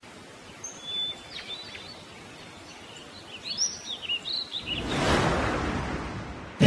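Small birds chirping in short rising and falling calls over a faint steady hiss; about five seconds in, a louder rush of noise swells and then fades.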